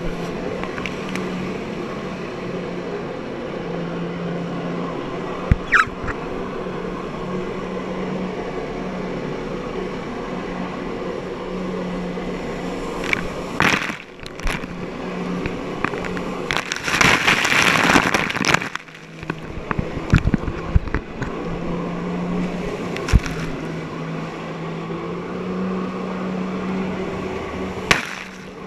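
Jet ski engine running steadily as it pumps water up the hose to a flyboard, its drone wavering a little in pitch. About halfway through, spray crashes over the craft in a loud rush of water, and there are a few sharp knocks.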